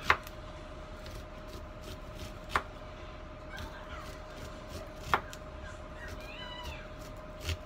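A kitchen knife slicing kernels off an ear of corn, knocking sharply on a wooden cutting board about every two and a half seconds, four times, over a faint steady hum.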